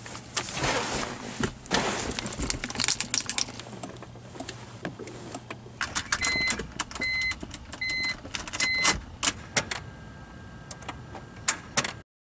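Keys jangling, then a dashboard warning chime beeping four times and a series of sharp clicks as the ignition key of a 2001 BMW 325i is turned. The engine does not crank: the starter just clicks, a no-start that is put down to a bad starter.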